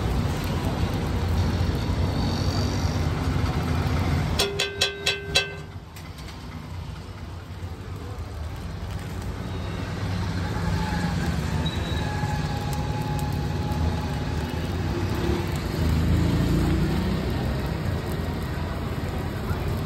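Steady roadside background noise, traffic-like, with a quick run of about five sharp ringing taps about four and a half seconds in.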